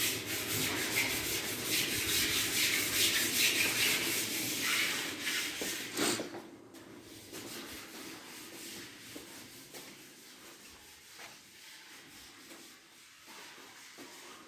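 Dry rubbing, scraping noise in quick repeated strokes for about six seconds, then it drops to faint scattered scuffs.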